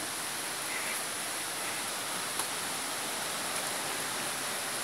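Steady rushing hiss of flowing water in a narrow rock gorge, even and unbroken.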